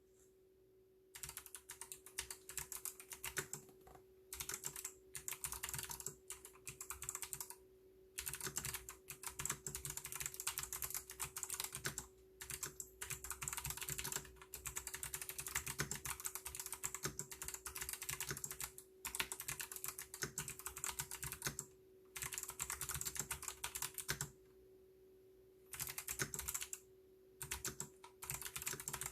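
Typing on a TFG ART wireless mechanical keyboard with clicky Kailh White switches: fast runs of key clicks in bursts of a few seconds, broken by short pauses, over a faint steady hum.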